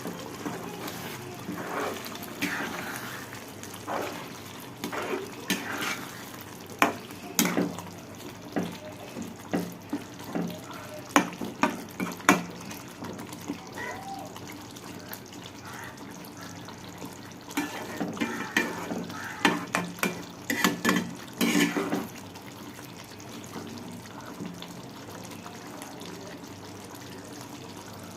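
Kitchen sounds: water running at a sink with a steady hiss, and irregular clinks and knocks of utensils in two busy spells, one in the first third and another a little past the middle.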